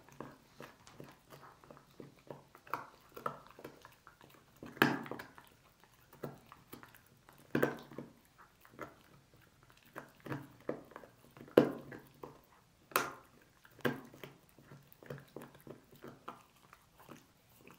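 A dog gnawing and chewing on a pork bone (a pig's trotter): irregular crunching and clicking of teeth on bone, with several louder crunches.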